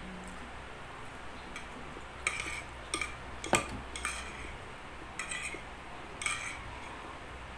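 Metal spoon clinking against a glass dessert bowl while eating, about six light clinks that ring briefly, the sharpest about three and a half seconds in.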